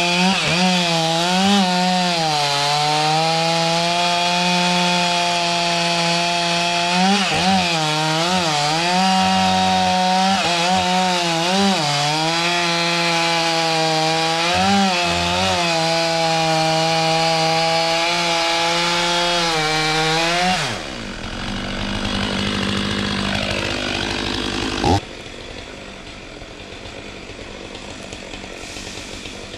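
Two-stroke chainsaw running at high revs and cutting wood, its engine pitch sagging and recovering again and again as the chain bites into the cut. About 20 seconds in the revs drop off, and after a sharp click about 25 seconds in it runs much more quietly.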